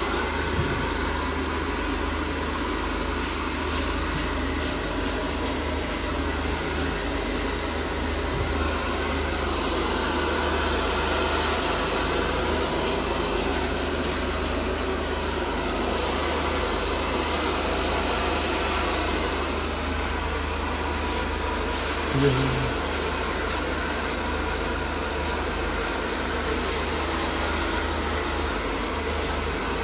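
Steady, even rushing noise that swells slightly a couple of times, with a brief low thump about 22 seconds in.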